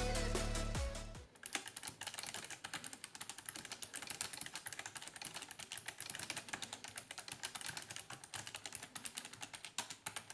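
Fast, steady typing on a Razer Ornata Chroma mecha-membrane keyboard, many key clicks a second, starting about a second in as electronic music stops.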